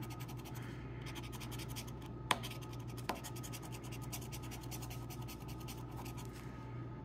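A coin scratching the coating off a paper scratch-off lottery ticket in rapid short scrapes, with two short clicks a couple of seconds in; the scraping stops just before the end.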